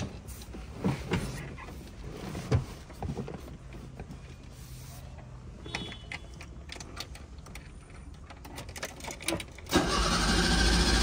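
Knocks and clicks from the pedals of a Fiat 147 as the accelerator is pumped. Near the end, the starter motor cranks the hard-starting engine loudly and steadily.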